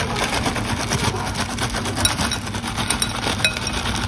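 Frozen green peas poured into a glass bowl over chopped vegetables and chicken: a dense, continuous rattle of many small pellets striking glass and each other.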